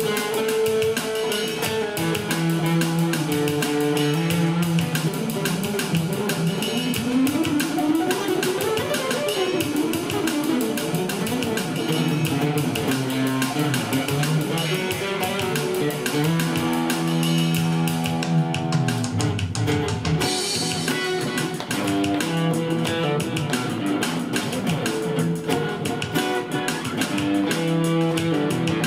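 Guitar playing a funk jam. About a quarter of the way in there is a run of notes sliding up and then back down.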